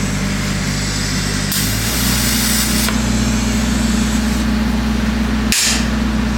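TIG welding arc running with a steady electrical hum and buzzing hiss from the welder, the leads connected with reversed polarity so the tungsten overheats and balls up. The hiss swells for a second or so early on, and about five and a half seconds in the arc briefly cuts and flares with a sharp hiss.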